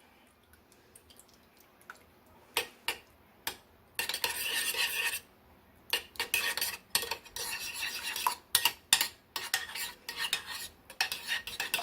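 A utensil stirring cream of mushroom soup and milk in a bowl, with scraping strokes and clinks against the bowl. A few separate knocks come after a quiet first couple of seconds, then longer spells of stirring.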